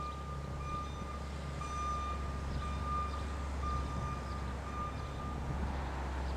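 Federal Electric Fedelcode Type Mach. 5 warning siren sounding a single steady high tone during a routine test, swelling and fading about once a second over a low rumble. The tone fades out near the end.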